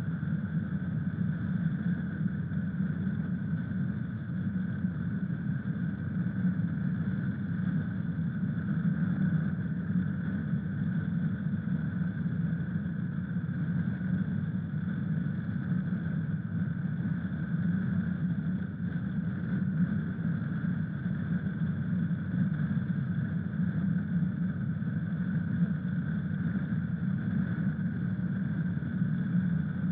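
Honda CRF1000 Africa Twin's parallel-twin engine running steadily, a constant low drone that does not change.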